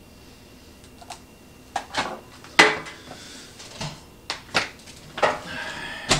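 Scattered light knocks and clatters, about seven in six seconds, the loudest about two and a half seconds in, as the ice cream maker's power cord and plug are handled and plugged into a wall outlet.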